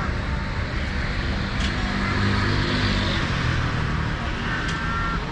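A motor vehicle engine running close by, loudest about halfway through, over a steady background of street noise.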